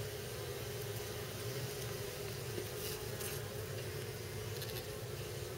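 Steady buzzing hum of honeybees around an opened hive, with a few faint light clicks about halfway through.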